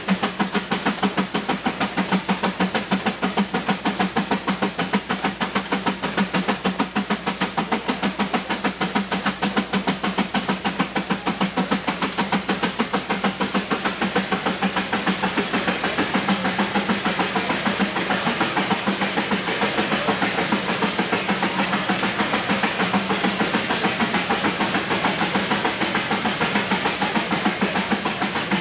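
Advance steam traction engine running steadily, belted to a prony-brake dynamometer, with a rapid, even beat of exhaust chuffs and a hiss of steam over a steady low hum.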